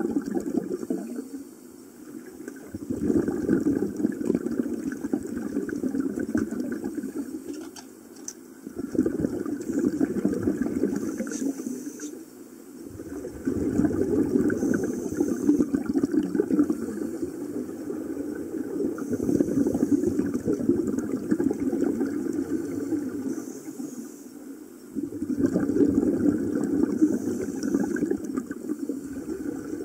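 Scuba regulator bubbles heard underwater: long stretches of rushing exhaust bubbles, broken by brief lulls every several seconds as the breathing cycle turns over.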